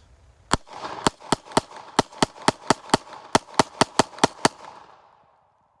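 Palmetto State Armory Dagger 9mm pistol firing a rapid string of about fifteen shots, roughly four a second, the first shots through the gun. The shots stop about four and a half seconds in, and the echo dies away after them.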